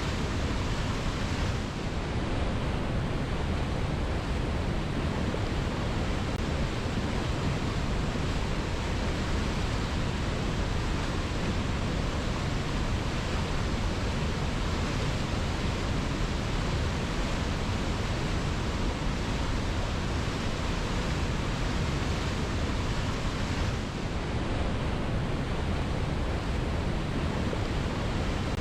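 Waterfall rushing, a steady, even noise with no breaks, dipping slightly twice.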